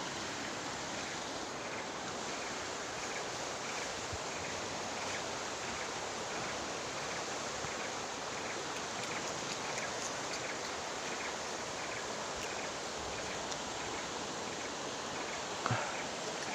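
Steady rushing of river water, with a faint ticking repeating about every two-thirds of a second and a brief knock near the end.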